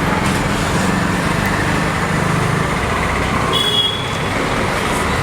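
Steady road-traffic noise: engines of passing vehicles running with a continuous low hum. A brief high-pitched tone sounds about three and a half seconds in.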